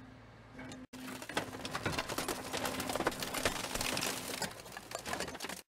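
A press crushing a model car: dense, rapid clicking and crackling over a steady low hum, starting about a second in and cutting off suddenly near the end.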